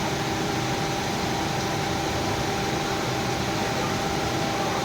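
Induction furnace melting steel: a steady hum with one constant high tone over an even roar of noise.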